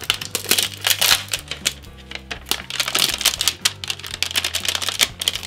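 Quick, irregular crackling and ripping as a tear strip is peeled off the paper wrapping of an L.O.L. Surprise package, over background music.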